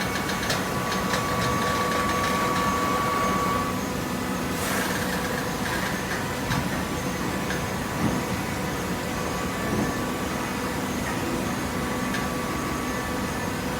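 Hydraulic baler's motor and pump running with a steady hum and whine. A higher whine drops out a few seconds in, followed by a brief hiss.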